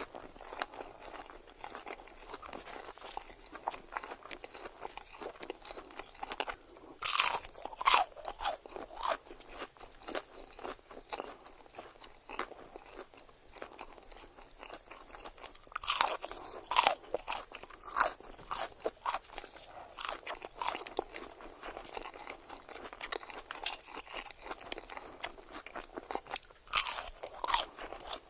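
Close-miked eating of crunchy food: three spells of loud, crisp crunching bites, about a quarter of the way in, just past halfway and near the end, with quieter wet chewing between them.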